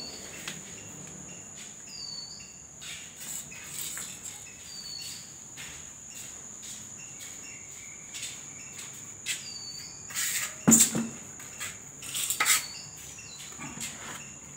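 Steady high-pitched insect trill, with a short chirp every few seconds. A scatter of small clicks and knocks from handling, loudest about ten to eleven seconds in.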